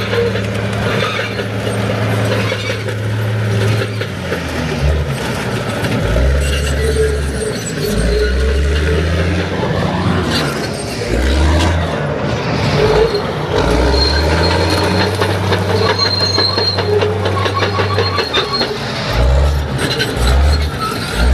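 Bulldozer's diesel engine running hard, its pitch repeatedly dropping and rising as it works, with high metallic squeals as it shoves cars.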